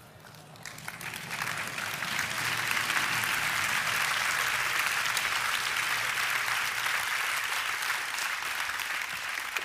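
Large audience applauding, building up over the first two seconds and holding strong and steady, easing off a little near the end.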